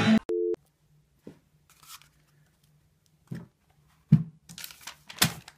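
A brief electronic beep, then a few sharp knocks and rustles as a toilet paper roll is handled against a wooden tabletop, over a faint low hum. The loudest knocks come about four and five seconds in.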